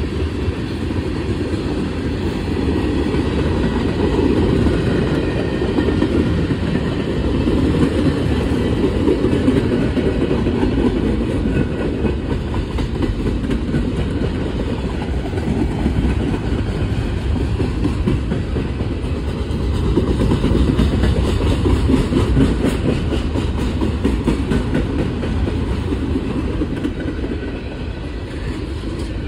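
CSX mixed freight train cars rolling past, their wheels running steadily on the rails with a continuous rumble.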